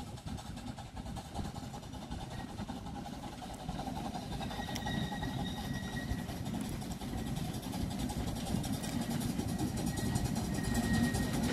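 Severn Lamb 15-inch gauge steam locomotive running towards the listener with its coaches, a low rumble that grows steadily louder as it nears. A faint high-pitched squeal comes in briefly about five seconds in.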